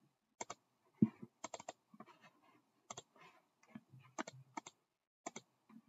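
Computer keyboard and mouse clicks: about a dozen short, irregular, faint clicks with uneven gaps.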